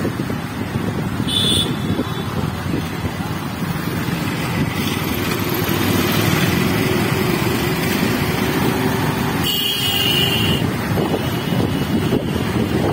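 Road traffic and wind rumble heard while riding across a steel truss bridge, with motorcycles and auto-rickshaws running alongside. Two short high-pitched beeps cut through, a brief one about a second and a half in and a longer one of about a second around ten seconds in.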